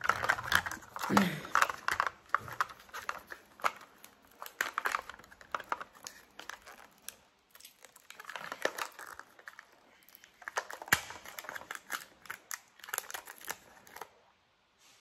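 Patterned plastic wrapper being torn and crinkled off a Mini Brands surprise capsule ball, in bursts of crackling with short pauses between them.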